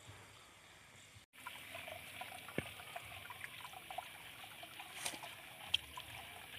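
Faint trickling of shallow water in a muddy rice-field ditch, starting about a second in, with a few light clicks.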